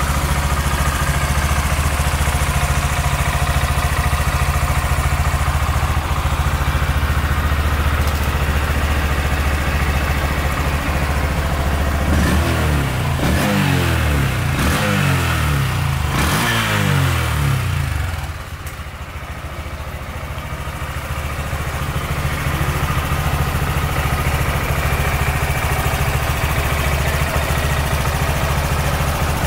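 Honda MSX125's small air-cooled single-cylinder four-stroke engine idling steadily. Around the middle it is revved in several quick throttle blips, each rising and falling in pitch. It briefly goes quieter, then settles back to a steady idle.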